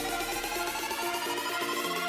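Background electronic music with a fast repeating synth figure over held bass notes and a slowly rising tone.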